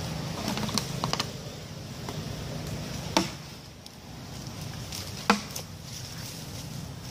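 Footsteps on dry leaf litter with a few sharp snaps, the two loudest about two seconds apart, over a low steady rumble.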